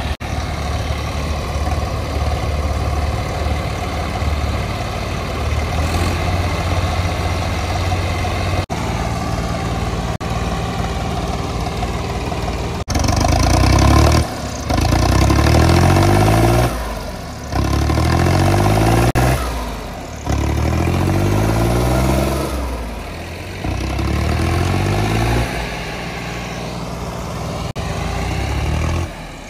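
Tractor diesel engine running steadily, then revved hard about halfway through in four loud surges of a couple of seconds each, with its pitch shifting within each surge and short drops between.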